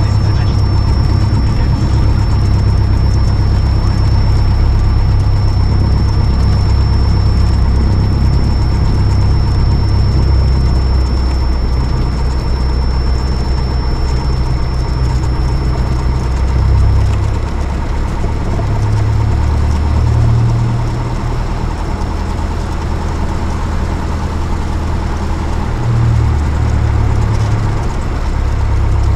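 Single-engine light aircraft's piston engine heard inside the cockpit as a steady drone. Its level and pitch shift a few times in the second half, as with changes of power.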